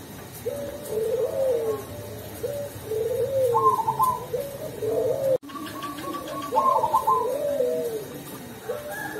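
Zebra dove (perkutut) of the black cemani variety cooing its song over and over: short clipped notes leading into a lower, bending coo, phrase after phrase. The sound drops out for an instant about five and a half seconds in.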